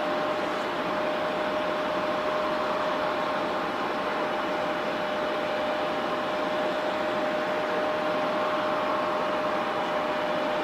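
Airbus A350's Rolls-Royce Trent XWB jet engines running steadily at low power: an even rushing noise with a steady whine held on one pitch.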